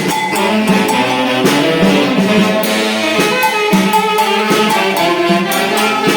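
Tunantada, Peruvian festival dance music, played by a band-orchestra with wind instruments over a steady percussion beat.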